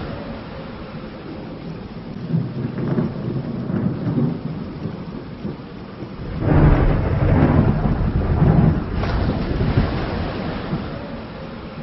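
Steady rain hiss under rolling thunder, which swells into a loud, long rumble a little past halfway and then fades back.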